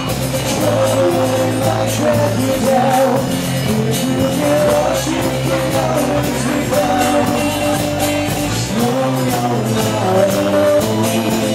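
Live band playing a pop-rock cover: acoustic guitar, electric bass and drum kit.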